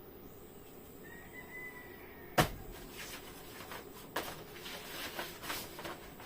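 Items from an unboxed kit being handled: one sharp click about two and a half seconds in, then a run of smaller clicks and rustling.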